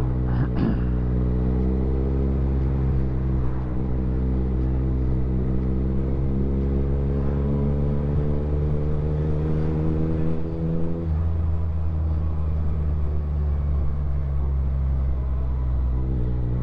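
Motorcycle engine pulling under way, its note climbing slowly for about ten seconds, then easing off sharply about eleven seconds in, leaving a low rumble and wind rush; the engine note picks up again near the end.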